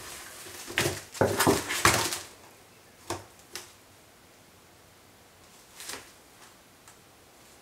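A cat scrabbling and rubbing against a cardboard box: a run of loud, scratchy rustles in the first two seconds, then a few short, lighter scrapes.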